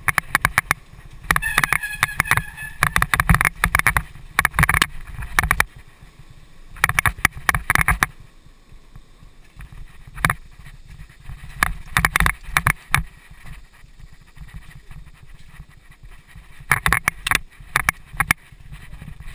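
Mountain bike descending a rough dirt singletrack, picked up by a helmet-mounted camera: runs of loud rattling and clatter from the tyres and bike over the bumpy trail, with quieter rolling stretches between them.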